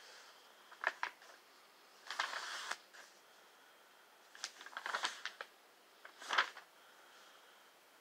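Bible pages being turned while a verse is looked up: a few short paper rustles and soft clicks, scattered and faint.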